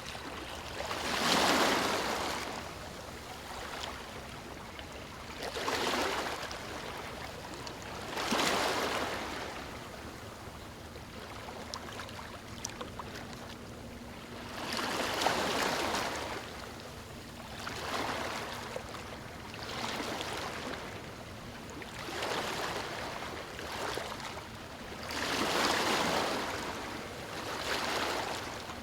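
Waves breaking on a stony shore. Each wave comes in as a swelling rush of water noise, one every two to five seconds, the strongest about a second and a half in.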